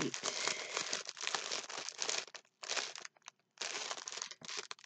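Small clear plastic bags of diamond painting drills crinkling and rustling as they are handled and sorted through, in irregular bursts with two short pauses about halfway through.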